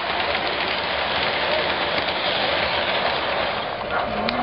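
O-gauge model freight train rolling past on its track: a steady, even rolling hiss of the wheels on the rails.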